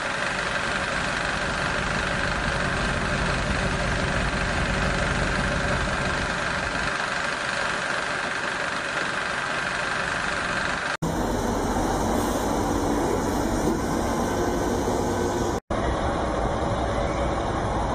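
Heavy vehicle engine running steadily, laid in as a sound effect. It drops out for an instant twice, about 11 and 15.5 seconds in, and sounds different after the first break.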